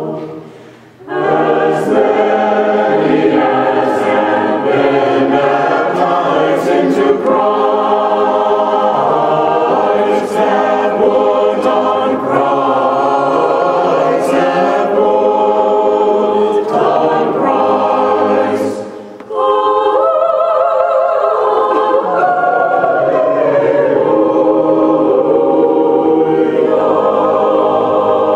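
Mixed church choir of men and women singing unaccompanied, with short breaks between phrases about a second in and again about two-thirds of the way through.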